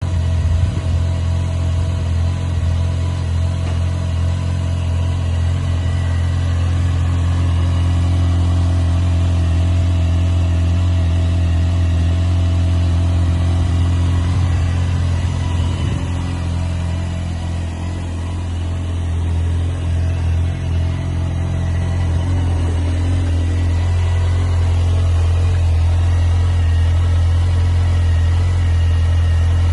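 Honda CBR600 F4i's inline-four engine running through its stock exhaust at a steady engine speed, with a deep, even drone and no clear revs.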